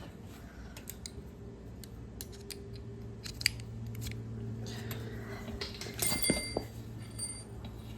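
Metal hand tools clinking and clicking as a ratchet and sockets are handled, with a short metallic ring about six to seven seconds in. A steady low hum runs underneath.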